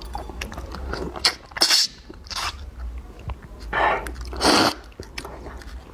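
Hands cracking and peeling langoustine shells close to the microphone: many small clicks and crackles, with four louder noisy bursts of shell breaking, the loudest about four and a half seconds in.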